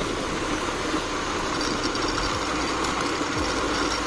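A vehicle's engine running steadily while the vehicle drives along.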